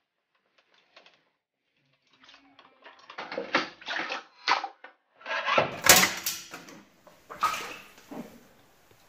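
Metal safe deposit boxes being pulled out and handled: a string of metal scrapes and clanks, with the loudest clank about six seconds in, after two near-silent seconds.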